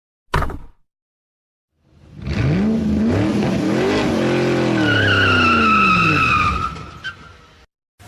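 Race-car sound effect: an engine revs up and back down, with a tyre screech over the falling part, then cuts off abruptly. A short sharp hit comes before it, near the start.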